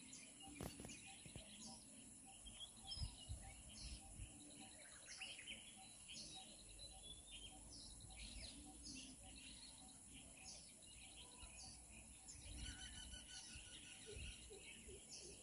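Faint birdsong: many short chirps and repeated trilled notes from several birds, over a low background rumble.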